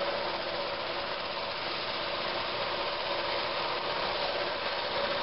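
Shop-made drum sander running steadily, its sandpaper-wrapped drum abrading a segmented wooden ring fed through beneath it to sand the face flat.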